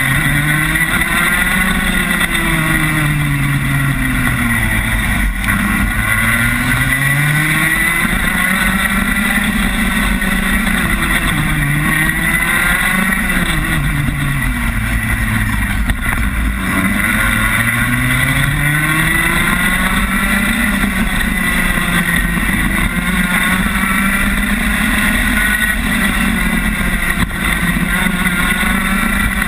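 Rotax Max 125cc two-stroke kart engine heard up close from onboard at racing speed. Its revs climb and fall away about five times in turn as the kart laps the circuit.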